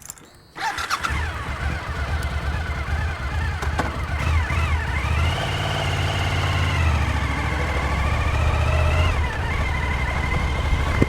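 Suzuki SV1000's 1,000 cc V-twin engine starting about half a second in, then running steadily with the revs rising and falling slightly a few times.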